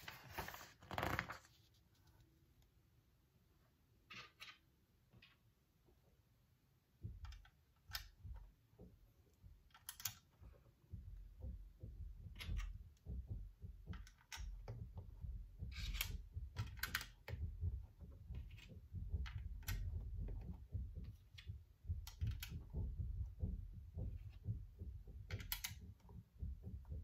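Scattered small clicks and snaps of plastic building bricks being picked up and pressed together, with dull handling knocks on the desk from about seven seconds in.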